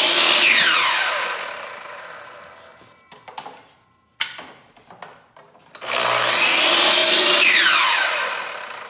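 Milwaukee sliding compound mitre saw cutting MDF crown moulding twice. The first cut is already under way and the second starts about six seconds in; after each the blade winds down with a falling whine. A few clicks and a sharp knock come between the two cuts.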